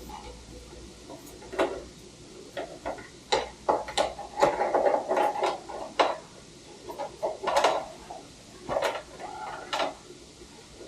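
Hand tools and parts being handled on a motorcycle: a string of irregular clicks and knocks with short stretches of scraping and rubbing, busiest in the middle.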